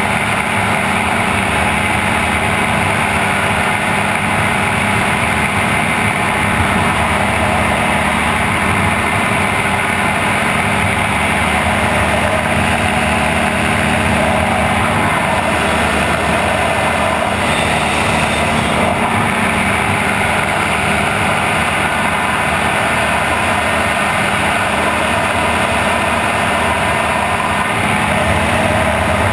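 Open-cockpit gyrocopter in flight: its engine drones steadily under a constant rush of wind noise.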